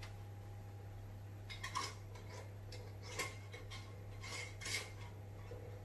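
Glass mason jars and their lids handled on a counter: a few short clinks and scrapes, about a second and a half in, around three seconds, and twice more near four and a half seconds, over a low steady hum.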